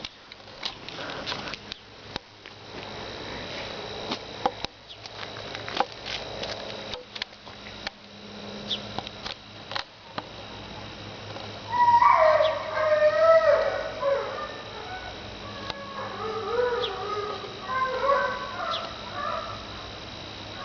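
Dog making odd vocal noises: long, wavering whines and yowls that slide up and down in pitch, coming in bouts from about halfway through. Before them there are scattered small clicks and snuffling.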